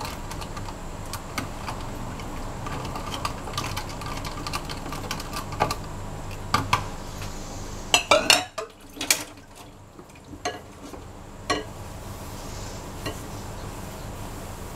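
A metal spoon stirring and clinking against a plastic measuring jug of water, egg, sugar and salt, stirred to dissolve the sugar and salt. About eight seconds in come a few louder clacks as the spoon is let go and the jug is moved and set down.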